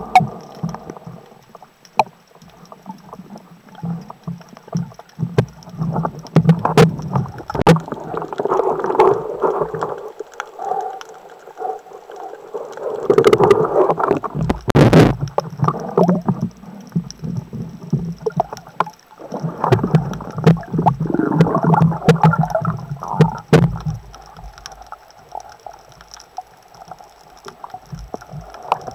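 Muffled underwater noise from a spearfisher's camera: water swishing past as the diver moves, with many sharp knocks and scrapes of the speargun and its line, loudest in a cluster about halfway through, then quieter near the end.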